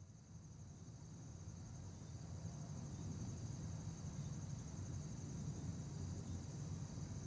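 A steady chorus of insects, such as crickets, trilling high and continuously over a low steady rumble, fading in over the first few seconds.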